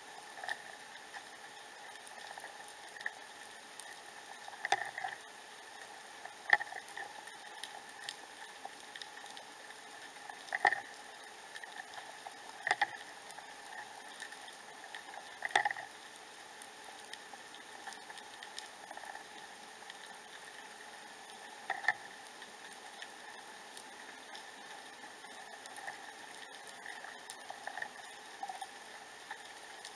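Underwater ambience picked up by a submerged camera: a steady bubbling hiss broken by sharp clicks and knocks at irregular intervals, about six loud ones over the stretch.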